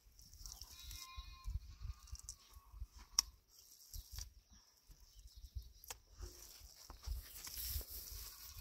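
A farm animal bleating: one drawn-out call near the start, with a few sharp knocks (the loudest about three seconds in) and low rumbling around it.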